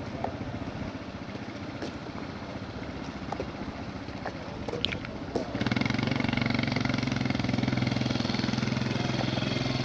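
An engine running, with a rumble and a few clicks at first. About halfway through, a louder, steady low engine hum with a fast pulse takes over.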